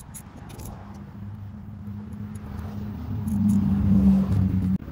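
A low, steady engine hum, growing louder about three seconds in and cutting off suddenly near the end, with a few faint clicks.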